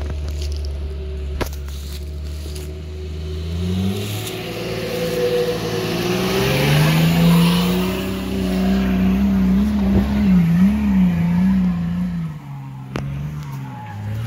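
Nissan Patrol GR 4x4's engine running steady, then revving up about four seconds in as it drives close past over loose dirt and leaves, with tyre and dirt noise at its loudest there. The revs then rise and fall unevenly under load as it climbs a slope and fades away.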